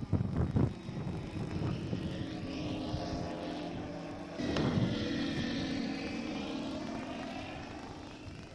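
Electric scale model Bristol Beaufighter flying past: its twin propellers and onboard sound generator give an imitation radial-engine drone. The drone swells about four and a half seconds in, then its higher tones fall in pitch as it passes. A few low wind buffets on the microphone in the first second.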